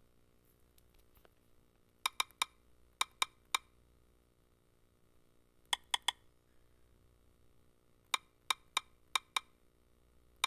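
Sharp, brief clicks in quick clusters of three to five, with pauses of a second or two between the clusters.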